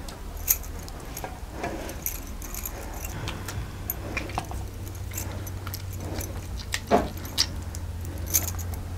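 Bangles clinking and jingling in scattered light clicks as hands squeeze ripe mangoes to press out the pulp, over a steady low hum.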